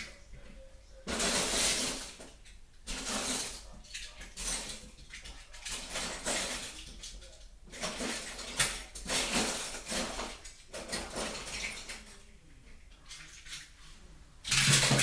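Irregular clattering and rustling of small hard objects being handled, in short bursts about a second long, several times over.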